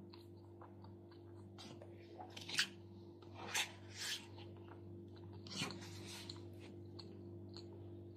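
Chewing, and a plastic spoon scraping and rustling through salad in a paper bowl in a few short bursts, over a steady low hum.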